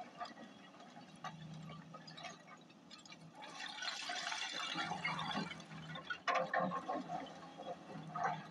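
Hyundai 210 crawler excavator digging into a pile of broken quarry rock: a steady diesel engine hum under the clatter and grinding of stones as the bucket scoops and lifts. The rattling is loudest from about three and a half to five and a half seconds in, with a second burst of clatter around six seconds in.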